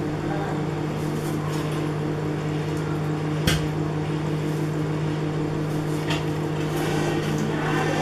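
LG microwave oven running with a steady electrical hum and fan noise, a candle inside. A single sharp click about three and a half seconds in, with a few faint ticks near the end.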